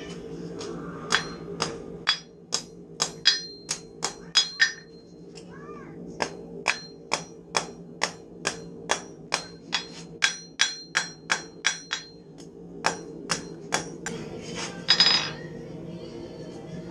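Hand hammer forging a hot steel knife blank on an anvil: a long run of ringing strikes at about two a second, with short pauses between bunches. Beneath them runs a steady forge hum.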